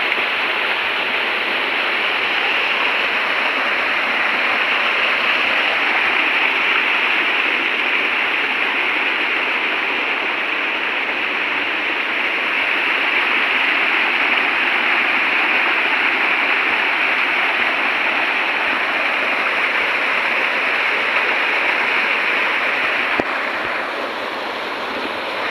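Steady rush of a small rocky stream pouring over a low cascade. It eases a little near the end.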